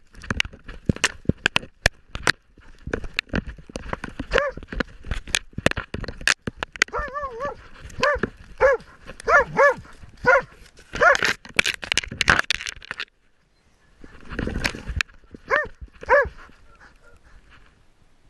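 Hunting dog barking in short, repeated barks, heard close up through a camera on its own collar. Quick knocks and rustles come from the dog moving through brush in the first seconds, and the barking goes quiet for a moment about two-thirds of the way through.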